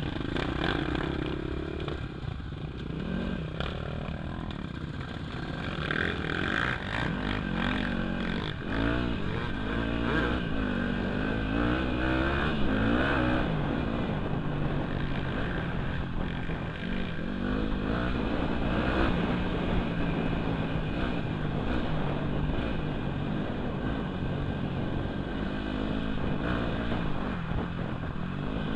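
Dirt bike engine heard from the rider's helmet, revving up and dropping back again and again as it accelerates and changes gear along a trail, with other trail bikes running close by at the start.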